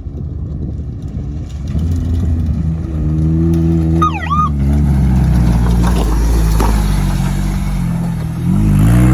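Coyote 300 off-road vehicle's engine running under way, its pitch rising and falling as it revs, then climbing again near the end. A brief high chirping squeal sounds about four seconds in.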